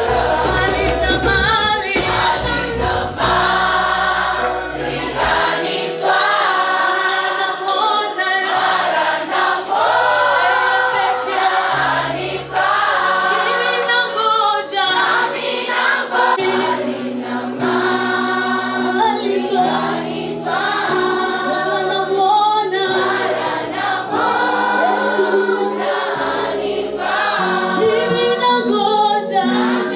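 A choir singing a gospel hymn in repeated sung phrases over held low bass notes.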